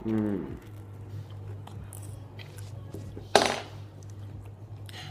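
Cutlery on a plate while eating, with one sharp clatter a little over three seconds in. A short falling hum from a voice comes at the start, and a steady low electrical hum runs underneath.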